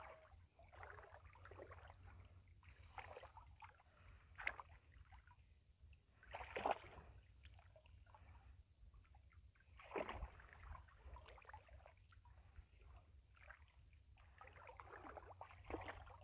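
Faint sloshing and splashing of water as people wade and work a fishing net, with three brief louder splashes.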